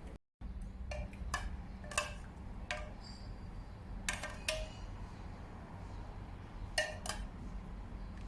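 Metal kitchen utensils and dishes clinking, a few short ringing clinks, some in quick pairs, over a steady low hum.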